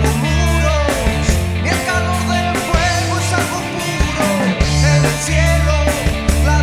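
Rock band playing with drums, bass guitar and electric guitar, and a man singing lead over them.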